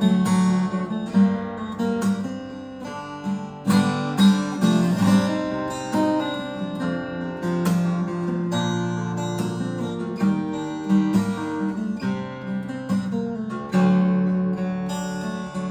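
Morris W40 acoustic guitar being played, a mix of plucked notes and strummed chords with clear ringing sustain.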